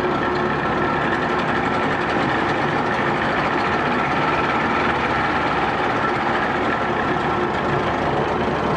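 1984 Evinrude 25 hp two-cylinder two-stroke outboard running steadily in reverse gear in a test tank.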